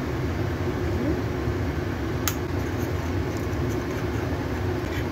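Steady low mechanical hum, with a metal spoon clicking once against a ceramic bowl about two seconds in while minced beef is stirred into the sauce.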